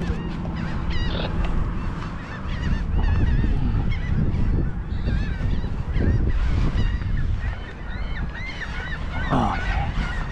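A flock of birds calling over and over, many short bent calls overlapping, with one louder, lower call near the end, over a steady low rumble of wind on the microphone.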